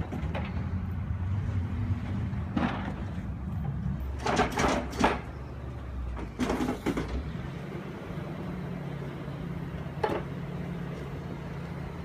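An engine runs steadily, with its tone shifting a little partway through. Several short scraping knocks sound over it, the loudest a cluster about four to five seconds in.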